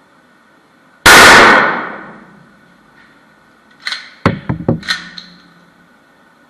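A single loud gunshot about a second in, its ring fading over about a second, then a quick run of sharp metallic clicks and clacks a few seconds later.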